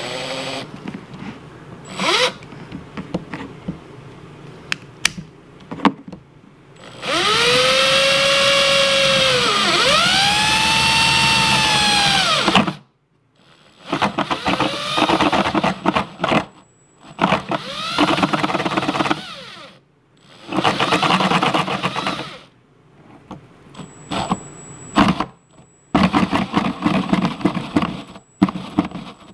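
Power drill driving an adjustable circle-cutter bit through a plastic-and-foam cooler, run in several bursts. In the longest burst, about seven to thirteen seconds in, the motor's pitch rises and falls twice with the trigger.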